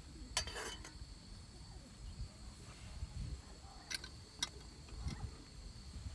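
Insects buzzing at a steady high pitch, with a few sharp clicks or knocks: one about half a second in and two close together about four seconds in, over a low rumble.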